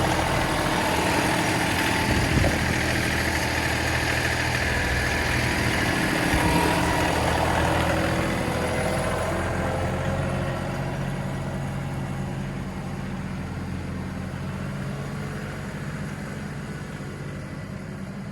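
Diesel engine of a John Deere compact tractor idling steadily, slowly growing fainter over the second half.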